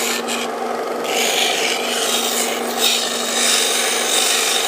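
Electric belt sander running with a steady motor hum while a wooden piece is pressed to the belt to round over its edge. The sanding rasp comes and goes in several strokes as the piece is worked and lifted, and stops near the end while the motor keeps running.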